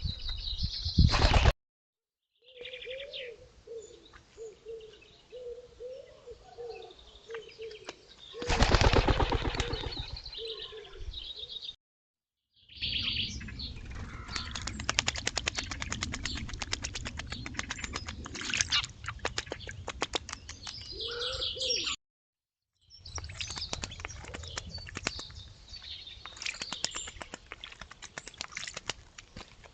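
Birds at a small pond: a loud burst of wing flapping about a third of the way in, chirps and calls, and long runs of rapid rattling clicks. The sound comes in short stretches cut off abruptly by brief silences.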